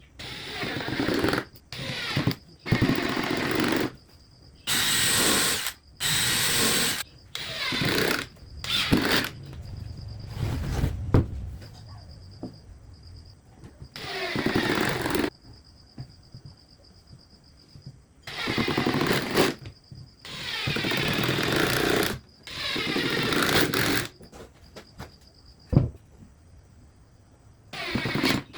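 A handheld power tool run in short stop-start bursts on wood, about a dozen runs of a second or so each, with pauses between.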